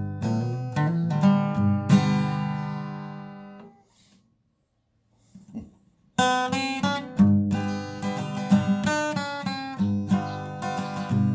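Background acoustic guitar music, strummed and plucked. It fades out about four seconds in, pauses briefly, and starts again abruptly about two seconds later.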